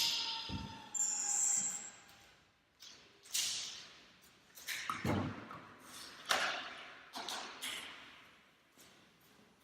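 A series of irregular knocks and taps, each with a short ringing tail. The loudest comes right at the start, and the rest are spaced about a second apart.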